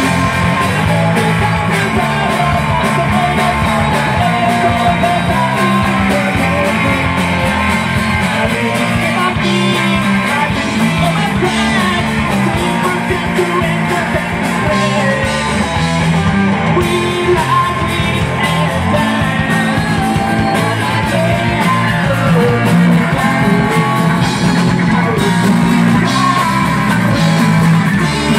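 Live rock band playing: electric guitar through a Marshall amplifier, bass guitar and a drum kit, with a singer's vocals over them. The music is loud and continuous.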